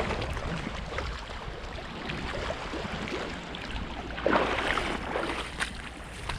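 Seashore ambience: water washing against the rocks and wind on the microphone, with small scattered clicks and a louder surge about four seconds in.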